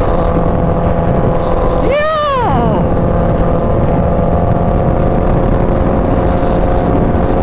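Kawasaki Ninja H2's supercharged inline-four running at a steady freeway cruise, heard from the rider's seat with wind rushing past. About two seconds in, a brief tone rises and falls in pitch.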